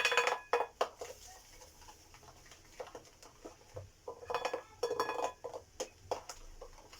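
Metal utensil clinking and scraping against a mixing bowl while semolina batter is stirred, in two short bouts of ringing clinks with scattered taps between them.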